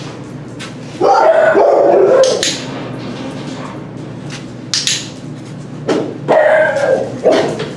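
Shelter dogs barking in two bouts, about a second in and again about six seconds in, with a few short sharp knocks between.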